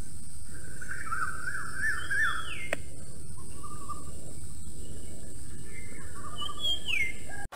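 Forest ambience of several birds chirping and whistling: warbling calls and two downward-sliding whistles, over a steady high hiss and a low rumble. It cuts off abruptly near the end.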